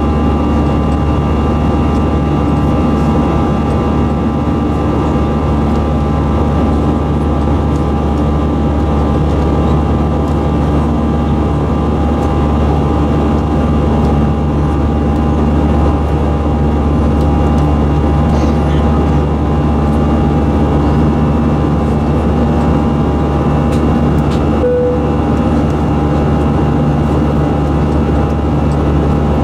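Steady cabin noise of an Airbus A320-214 in flight, heard inside the cabin by the wing: an even rush of air and the drone of its CFM56-5B engines, with a few steady whining tones. A brief short tone sounds near the end.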